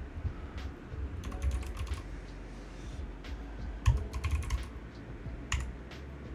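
Typing on a computer keyboard, retyping a web address: quick runs of key clicks a little over a second in and again around four seconds in, a few more keystrokes near the end, with dull thuds of the keys bottoming out.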